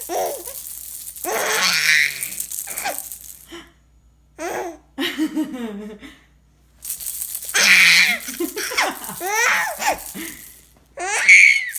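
Six-month-old baby laughing in repeated bursts of giggles and belly laughs while a baby rattle is shaken, with short pauses between spells.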